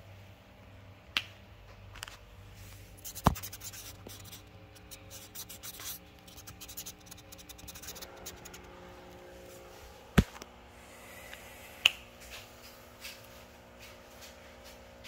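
Handling noise from a phone held against skin: rubbing and scratching on the microphone, with a few sharp knocks, the loudest about three and ten seconds in.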